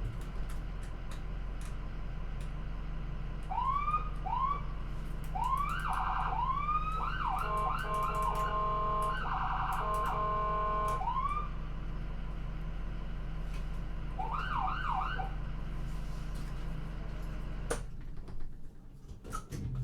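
Ambulance siren on a moving vehicle, sounding in short spells: single rising whoops, then a few seconds of alternating two-tone hi-lo, then a quick burst of yelps, over a steady low engine and road rumble. The rumble drops away near the end, leaving a couple of clicks.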